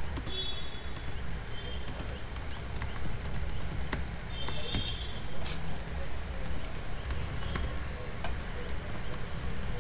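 Light, rapid clicks of a computer keyboard and mouse as points are dropped along a traced road, over a steady low hum. Two short high chirps come about half a second in and again near the middle.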